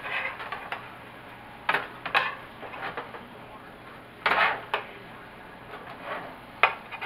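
Metal spoon scraping and clinking against a square nonstick pan as sauce is spooned over chicken, in several short strokes; the longest and loudest comes a little past the middle.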